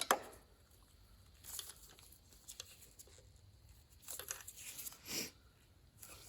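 Plastic packaging crinkling and rustling in a few short, faint bouts as a set of pre-made spark plug wires is handled, with a sharp click at the start.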